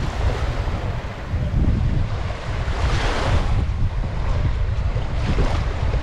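Small beach waves washing up on the sand, one surging louder about halfway through, with wind buffeting the microphone as a constant low rumble.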